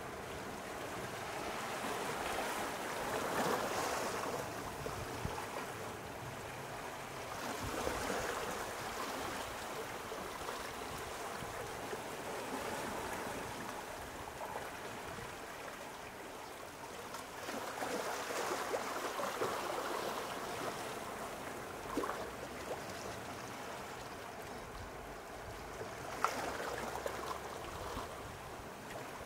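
Small sea waves washing and lapping at the shore, the wash swelling and easing several times, with a few faint splashes.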